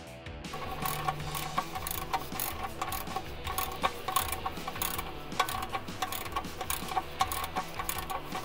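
Socket ratchet wrench clicking over and over as it turns the oil drain plug back into the oil pan, the clicks starting about half a second in.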